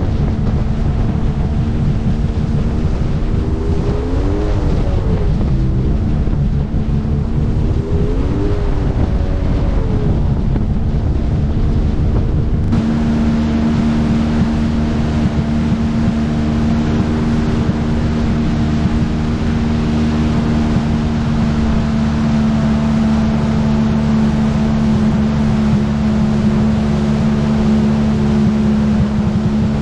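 Jet ski engine running at speed, over the rush of water and spray with wind on the microphone. The engine pitch rises and falls briefly twice in the first several seconds. About 13 seconds in the sound changes abruptly and the engine then holds a steady pitch.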